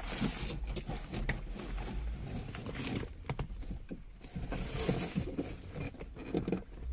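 Rustling, scraping and light clicking of a USB cable being fed through the car's plastic dashboard trim, in short irregular bursts.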